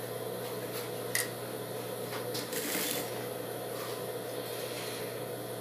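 Cotton fabric rustling as hands arrange a dress's top and gathered skirt under the presser foot of an industrial sewing machine, with a louder rustle in the middle and a light click about a second in, over a steady low hum.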